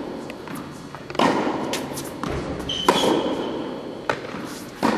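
Tennis balls being hit with a racket and bouncing on an indoor court: four sharp knocks, each with a short echo in the hall, and a brief high squeak just before the second.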